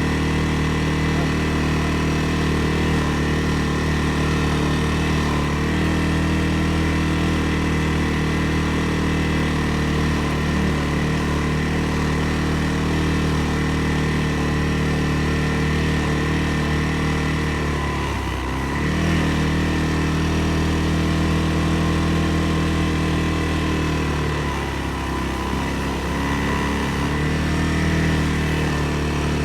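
CFMoto CF600 ATV engine running steadily while riding the trail, its pitch dropping briefly about 18 seconds in and again about 24 seconds in as the throttle eases and picks back up.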